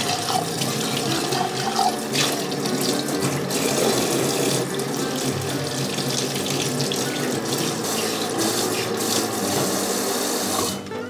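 Kitchen tap running into a stainless steel sink, the water splashing over a food jar and a plastic lid as they are rinsed by hand. The water stops near the end.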